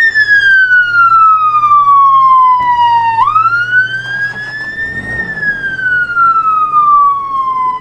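Ambulance siren sounding a slow wail. The tone slides down over about three seconds, sweeps back up, then slides slowly down again.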